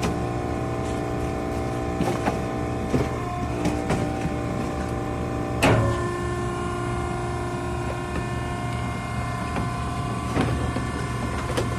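Machinery running steadily with a low hum and several held whining tones, broken by scattered knocks. A loud clank comes near the middle, and the whine's pitch shifts after it.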